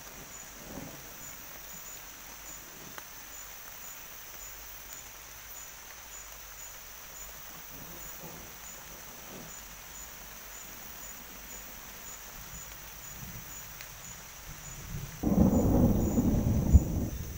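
Faint hiss of a wet forest with a high insect trill pulsing steadily, then about fifteen seconds in a sudden loud, low thunder rumble that lasts about two seconds.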